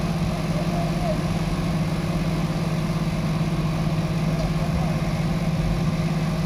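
Diesel engine of a 150-tonne Grove mobile crane running steadily at a constant low speed while the crane holds a suspended load.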